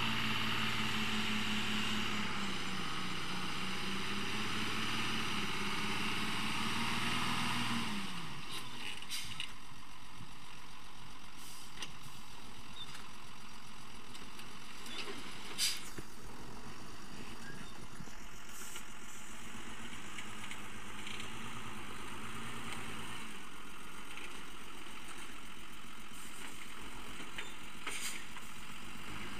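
Engine of an old, heavily loaded firewood truck running with a wavering pitch as it works along, then falling away about eight seconds in. After that only a fainter steady rumble with a few scattered clicks remains, and the engine note comes back at the very end.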